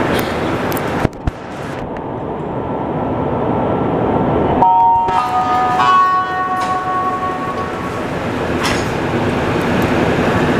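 Montreal MR-73 metro car leaving a station. A thump about a second in is followed by a drop in the noise, consistent with the doors closing. As the train pulls away, its traction equipment sounds a set of steady tones that step upward in pitch over the rising rumble of the car.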